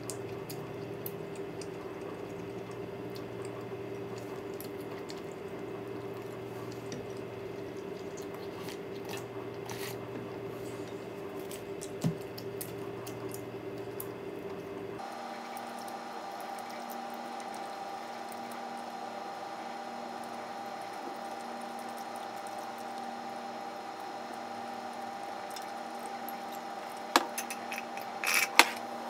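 Close-miked mukbang eating sounds: quiet wet chewing of oden and occasional chopstick clicks on a glass bowl, over a steady background hum. Near the end come a few sharper clicks, as iced lemon juice is sipped through a straw from a glass.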